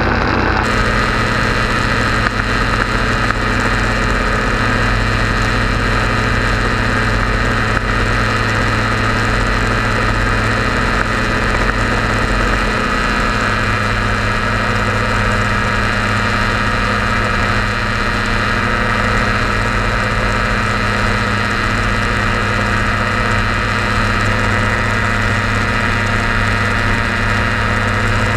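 Quicksilver Sport 2S ultralight's engine and propeller running steadily in flight, heard from inside the open cockpit.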